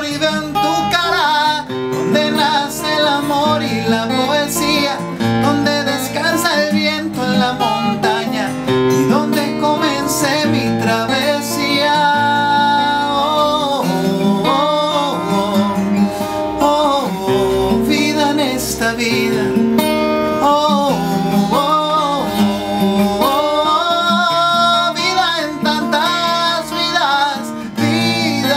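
A man singing a melody over his own strummed acoustic guitar, played live.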